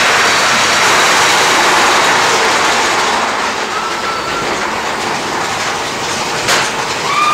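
Big Thunder Mountain Railroad's mine-train roller coaster cars running on their steel track, a loud steady rattle and rumble. A short wheel squeal comes about four seconds in, and a single sharp clack comes a little after six seconds.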